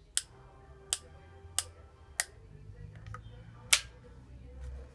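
About five sharp plastic clicks, unevenly spaced, the loudest near the end, from a Moser Primat Adjustable hair clipper being handled: its cutting-length adjustment lever is being flicked. The motor is not running.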